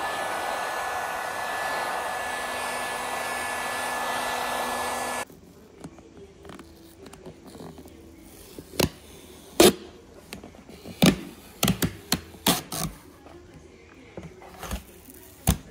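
Hot-air heat gun blowing steadily with a fan whine, warming an old decal to soften its adhesive, switched off about five seconds in. Then scattered sharp clicks and knocks.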